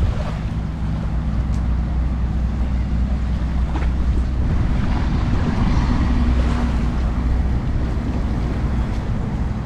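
Wind rumbling on the microphone over the wash of surf on a beach, with a faint steady low hum underneath.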